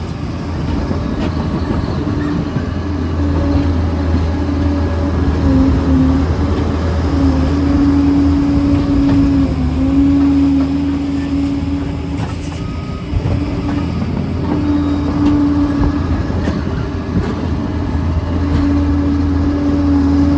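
Liebherr PR 746 crawler dozer's diesel engine running steadily under load, with a whining tone that wavers and steps up and down in pitch and frequent short clanks and knocks from the machine at work.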